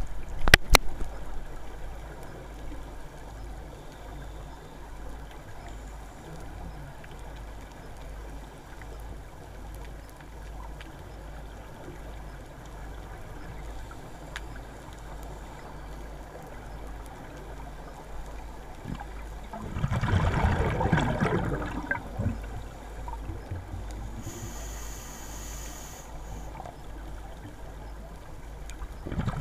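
Underwater sound through a dive camera's housing: a steady, muffled low rumble, with a couple of sharp knocks right at the start. About twenty seconds in comes a loud rush of a scuba diver's exhaled regulator bubbles, lasting a second or two, and another starts at the very end.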